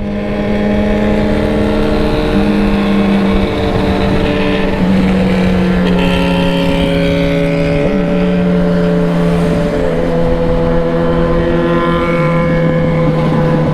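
Yamaha XJ6 inline-four motorcycle engine running at a steady cruise, its pitch shifting slightly a few times, with wind buffeting the microphone.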